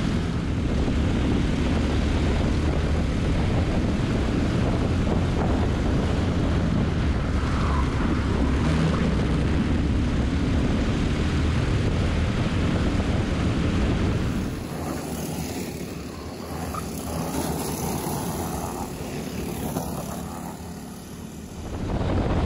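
Racing kart's Briggs & Stratton LO206 single-cylinder four-stroke engine running at speed, heard onboard. About fourteen seconds in, the sound drops in level and turns thinner for several seconds, then comes back up to full level near the end.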